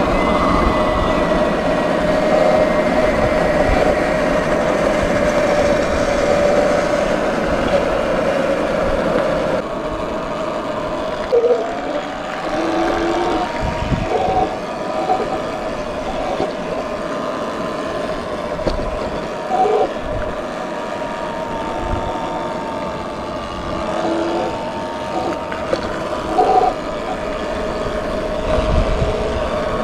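Sur Ron X electric dirt bike riding along a gravel road: a steady electric drivetrain whine over heavy wind rush on the microphone. The sound eases off about ten seconds in as the bike slows.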